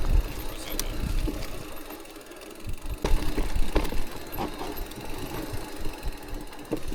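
Electric mountain bike rolling down a wet, rooty trail: irregular knocks and rattles as the tyres and frame go over roots, the clearest a little after three seconds and again near four, over a constant low rumble.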